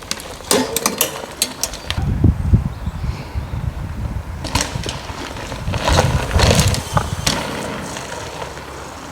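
Pivot Mach 6 mountain bike ridden over a bump jump: clicks and rattles, then heavy thuds with a rattle about two seconds in and again around six to seven seconds, the sound fading away near the end as the bike rolls off.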